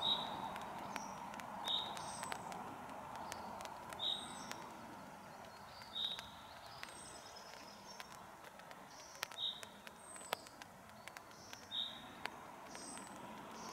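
Light rain falling, scattered drop ticks over a soft steady hiss, while a songbird repeats a short high call about every two seconds.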